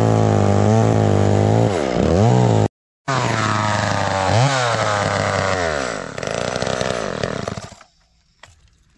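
A 1970s Jonsered two-stroke chainsaw running at high revs while cutting a stump flush with the dirt. Its pitch dips and recovers a few times as the chain bites into the cut, and it winds down and stops about eight seconds in.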